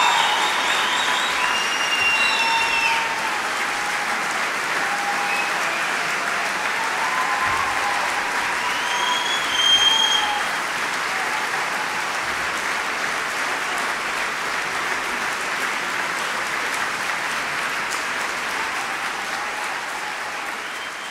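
A large concert-hall audience applauding, with a few whistles and cheers over it, fading out near the end.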